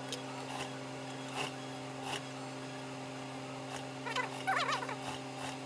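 Steady electrical hum from an industrial sewing machine's motor at rest, with a few light handling clicks. About four seconds in comes a brief high, warbling whine that wavers up and down.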